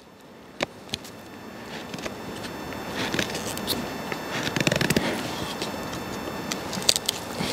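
A Scandi-ground bushcraft knife carving a notch into a split maple stick: a couple of sharp clicks as the blade is set for a stop cut, then repeated scraping, crackling strokes as it shaves wood out of the notch.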